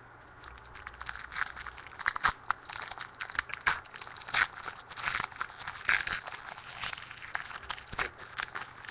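Wrapper of a football trading card pack being torn open and crinkled by hand, in dense, irregular crackles.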